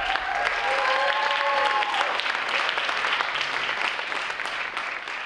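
Audience applauding, with a held cheer from someone in the crowd over the first couple of seconds.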